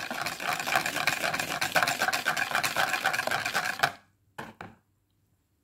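Wire balloon whisk beating liquid chocolate pudding mix in a plastic bowl: a fast, even clatter of the wires against the bowl. It stops about four seconds in, followed by two short scrapes.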